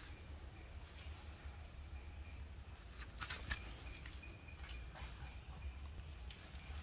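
Faint outdoor ambience: a steady high insect drone with short faint chirps over a low rumble, and a few soft clicks in the middle.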